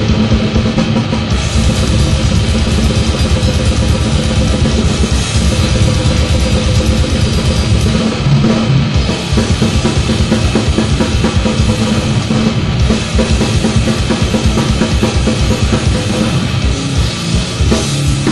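Instrumental grindcore without vocals: a full band playing loud and dense, with fast drum-kit strokes, bass drum and cymbals driving throughout. The texture changes about eight seconds in, with the low drum hits coming through more sharply.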